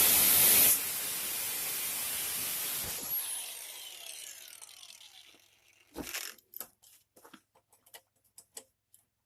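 A power tool cutting a steel chain link runs loudly, drops in level under a second in, then is released and spins down with a falling whine. A knock and a few light metallic clicks follow as the chain is handled.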